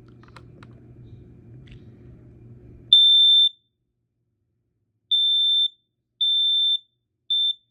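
Nighthawk PI9000 smoke alarm sounding its test alarm: a loud, high-pitched beep about three seconds in, then after a pause of about a second and a half three more half-second beeps evenly spaced, the temporal-three alarm pattern. A few faint clicks come before the alarm starts.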